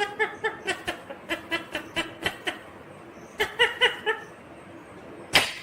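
Indian ringneck parakeet chattering: a quick run of short pitched notes, about five or six a second for two and a half seconds, then after a pause a second short burst. A sharp click sounds near the end.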